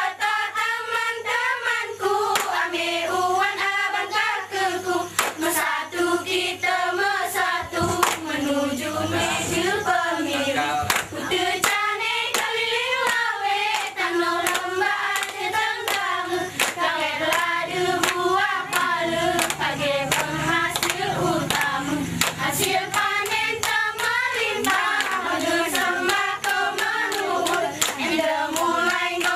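A group of young women singing a mesekat chant in unison while clapping their hands and slapping their chests in a steady, quick rhythm, the body-percussion of the Alas mesekat dance.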